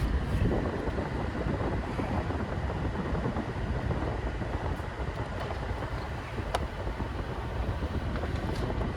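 A car engine idling, with the air-conditioning system running while its leaking system is recharged with refrigerant: a steady rumble and whir heard close up from the engine bay. There is a faint tick about six and a half seconds in.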